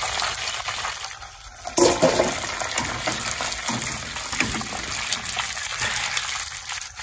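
Chicken wings deep-frying in a pot of hot oil, sizzling steadily, with a sharp clatter of a steel mesh strainer against the pot and a steel bowl about two seconds in.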